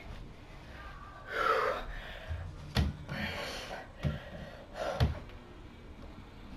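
A boy gasping for breath between pull-ups, followed by three dull thumps from footsteps and the doorway pull-up bar as he grabs it and hangs from it.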